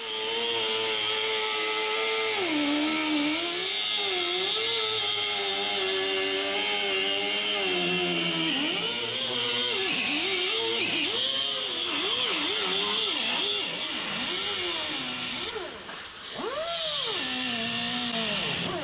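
Pneumatic cutoff wheel ('muffler cutter') whining as it cuts through a car's steel quarter panel, with a steady hiss above the whine. Its pitch holds at first, then sags and swings up and down again and again as the disc is pressed into the cut, dropping briefly near the end.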